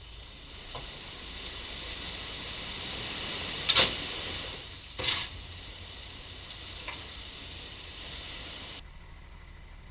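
Bobcat T870 compact track loader working a gravel driveway: a steady hiss of moving gravel with two sharp knocks about four and five seconds in and a couple of lighter clicks. The hiss cuts off suddenly near the end.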